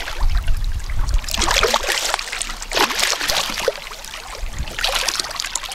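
Hooked golden dorado thrashing at the river surface close to the boat: several irregular splashes over a low rumble that fades after about a second and a half.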